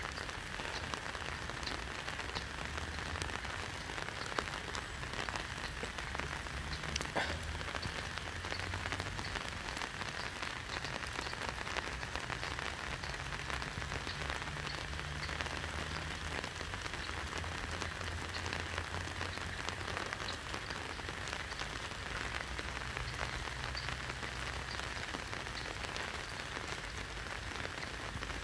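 Steady rain falling on the surface of a swollen river, an even hiss dotted with many small drop ticks.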